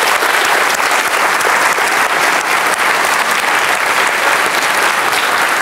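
A large audience applauding steadily, a dense round of many hands clapping.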